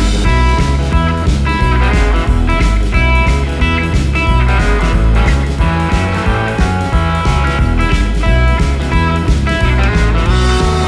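Rock music with electric guitar, a heavy bass line and drums.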